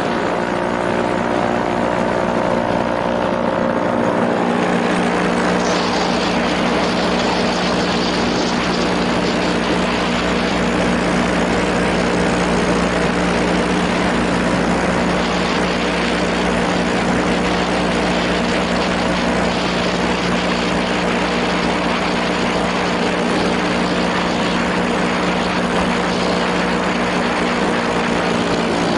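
Small propeller engine running at a steady speed, with heavy wind noise over it.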